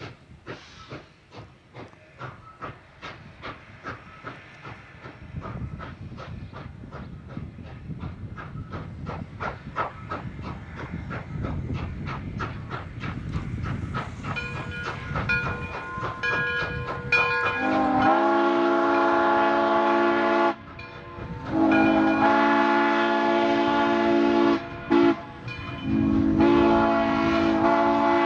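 Frisco 1630, a 1918 Baldwin 2-10-0 Decapod steam locomotive, working past with rhythmic exhaust chuffs that grow louder. A few brief whistle notes come about halfway through. Then its steam whistle blows long, long, short, long, the grade-crossing signal.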